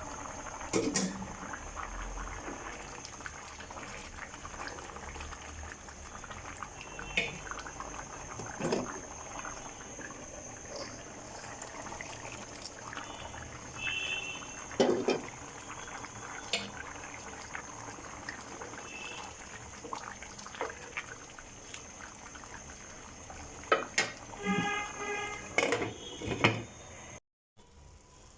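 Khichuri bubbling and simmering in a cooking pot, a steady liquid hiss, with occasional sharp clinks and knocks of a utensil against the pot.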